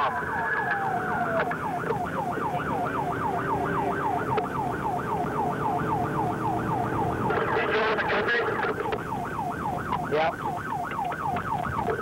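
Police car siren on a pursuit, heard from inside the cruiser: a falling wail at first, then switching about a second and a half in to a fast yelp that rises and falls about five times a second.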